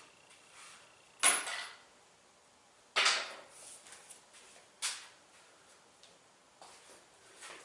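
Handling noises from a washer teardown: a few sharp knocks and clatters, the loudest a little over a second in, another at about three seconds, and a smaller one near five seconds.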